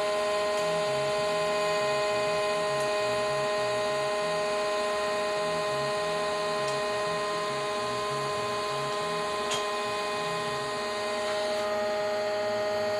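SIP Hydroptic 8 jig borer running with a steady hum made of several constant tones, and a faint uneven rumble beneath it. A small click comes about nine and a half seconds in.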